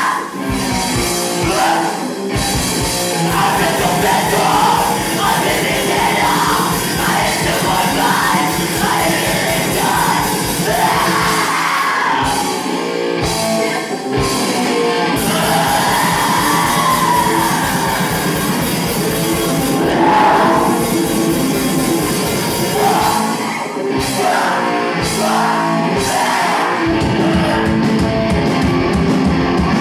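Loud live rock music from a band: drums and amplified instruments with a steady beat, and a voice singing and yelling over them.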